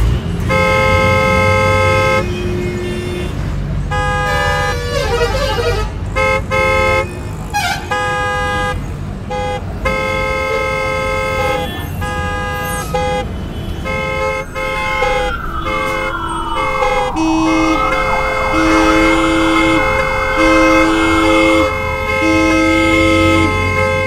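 Road-traffic honking: many different vehicle horns blast over and over, overlapping one another above a steady rumble of traffic. From about the middle, a siren sweeps down and then wavers for several seconds while short horn blasts repeat about once a second.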